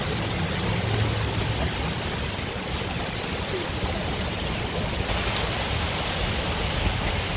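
Steady rushing of flowing water from a sculpture-park fountain or stream. The hiss grows brighter about five seconds in.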